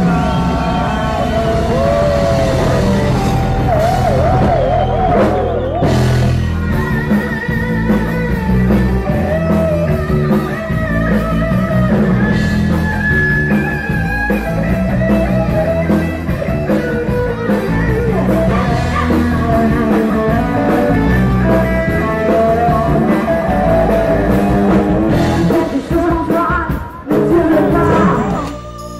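Live rock band playing with a singer and guitar, loud and continuous, cutting off abruptly just before the end.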